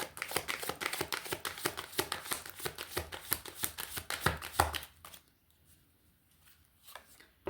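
Runes being shuffled by hand for a reading: a rapid, dense run of small clicks and rustles that stops about five seconds in, followed by a couple of faint ticks.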